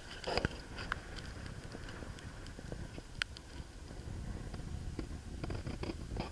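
Low handling rumble with scattered light ticks and rustles as a handheld camera is carried along a wooden fence and pushed into shrub foliage.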